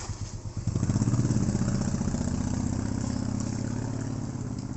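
A small engine running with an even low throb that comes in loudly under a second in and then slowly fades.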